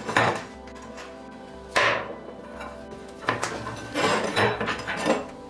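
Several knocks and scrapes as a rusty iron axe head, pieces of its split wooden handle and a pair of pliers are handled on a wooden workbench, the loudest knock about two seconds in. Background music plays underneath.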